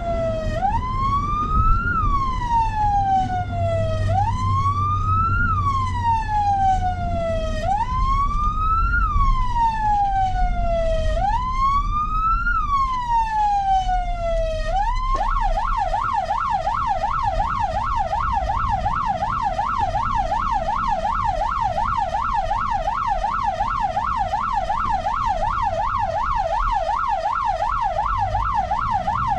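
Electronic emergency-vehicle siren in a slow rising-and-falling wail, each cycle about three and a half seconds, switching about halfway through to a fast yelp of roughly three sweeps a second. A low vehicle rumble runs beneath it.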